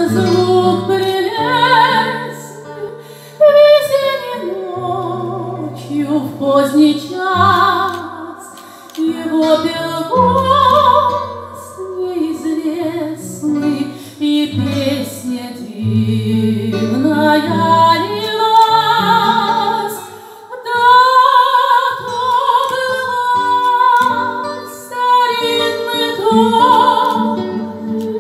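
A woman singing a Russian romance in a full, operatic voice with wide vibrato, into a microphone, accompanied by an acoustic guitar playing plucked bass notes and chords in a slow waltz time.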